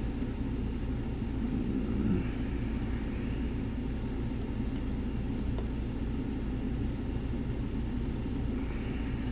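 A steady low rumble throughout, with a few faint small clicks of a pick working the pins of a Nemef NF4 dimple lock.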